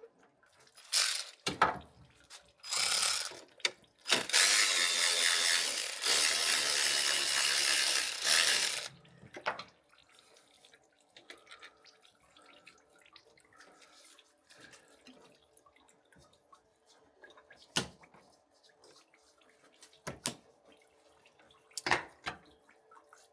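Clicks and clanks of hand tools on metal fittings while oil cooler lines are being undone. About four seconds in comes a loud rushing hiss lasting about five seconds, followed by scattered single clicks.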